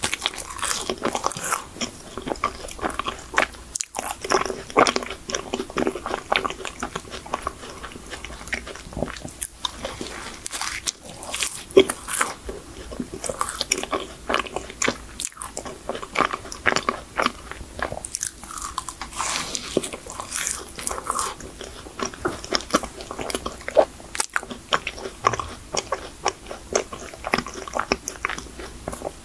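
Eating chocolate cream-filled choux pastry: bites into the pastry and chewing, with frequent irregular mouth clicks and smacks.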